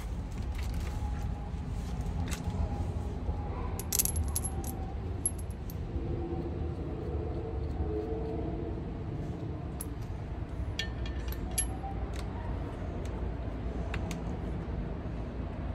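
Scattered light metallic clinks of small steel parts being handled, with a short ringing ping about eleven seconds in, over a steady low rumble.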